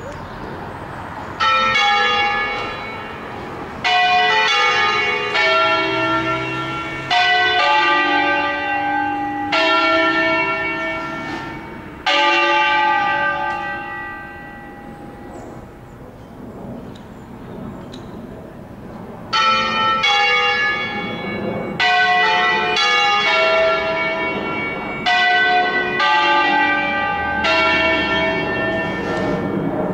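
Five tuned church bells from a nine-bell ring in A, cast by Angelo Ottolina in 1947, rung as a concerto: single strong strokes about one to two seconds apart, each bell ringing on with its overtones. The strokes pause for about seven seconds in the middle while the bells die away, then resume in a second run.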